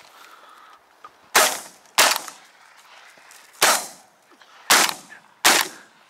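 Five shotgun shots: two about half a second apart, then three more spread over the next two seconds, each a sharp crack with a short fading tail.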